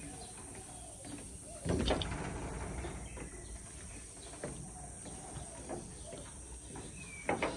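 Footsteps on a covered wooden boardwalk: a few scattered knocks of shoes on the planks, the loudest about two seconds in. Faint bird calls sound over quiet outdoor ambience.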